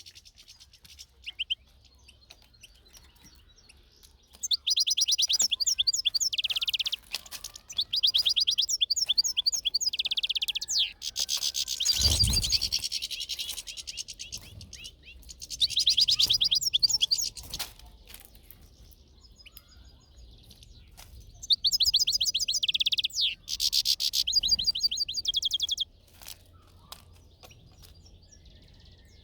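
European goldfinch singing: four bursts of rapid, tinkling twitters and trills, each a few seconds long, with pauses between. About halfway through there is a brief thump.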